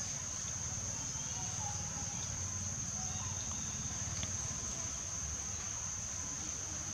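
Steady high-pitched insect drone, unbroken throughout, over a low rumble, with a few faint short chirps.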